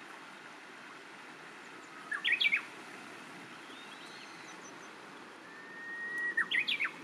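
Japanese bush warbler (uguisu) singing twice. First comes a short phrase about two seconds in. Near the end comes a long held whistle that breaks into the quick 'hokekyo' flourish.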